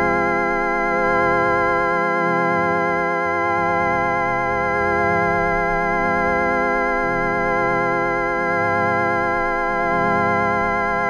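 Sustained organ-like electronic drone: a held chord of steady tones over low notes that shift every second or so.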